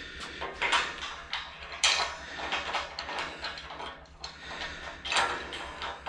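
Loose metal hardware clinking and clattering as it is picked up and handled, with louder knocks about a second in, about two seconds in and about five seconds in.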